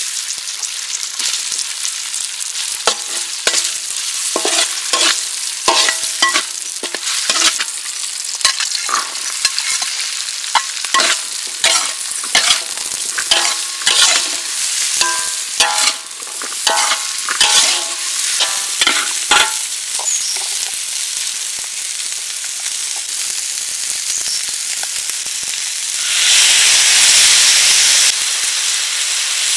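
Vegetables stir-frying in oil in a steel wok: a steady sizzle, with a metal spatula scraping and clanking against the wok, which rings at each strike, through the first two-thirds. Near the end the sizzle swells louder for about two seconds.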